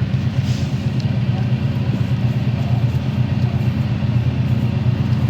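Motorcycle engine idling steadily, a low, even rumble with no revving.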